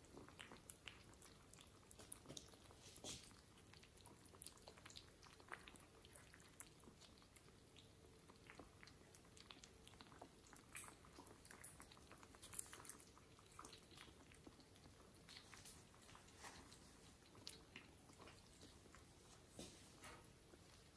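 Faint, scattered little clicks and smacks of kittens licking and chewing at the floor.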